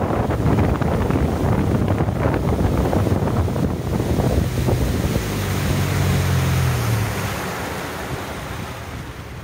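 Honda BF100 four-stroke outboard running at speed, under heavy wind noise on the microphone and the rush of the wake. About seven seconds in, the engine's low note drops away and the sound fades as the boat slows.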